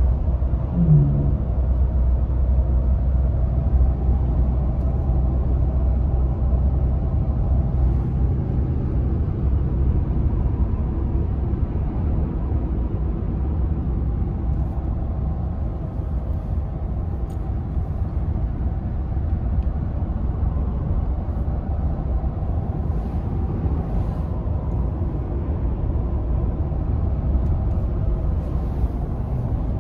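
Steady low rumble of road and engine noise inside the cabin of a moving vehicle.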